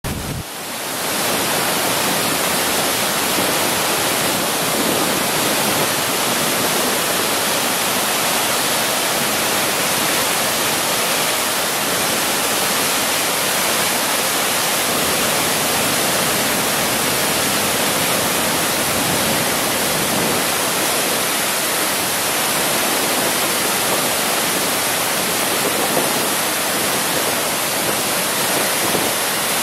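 Floodwater pouring over a dam and crashing into the river below: a loud, steady rush of white water that does not let up. The river is in severe flood.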